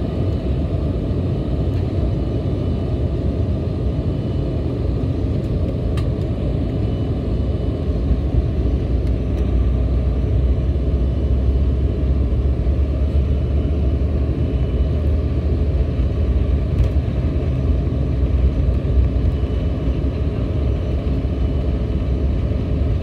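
Cabin noise of an Embraer 175 rolling on the ground: a steady low rumble from its two General Electric CF34 turbofans and the wheels on the pavement, heard through the fuselage. The rumble grows a little heavier about eight seconds in.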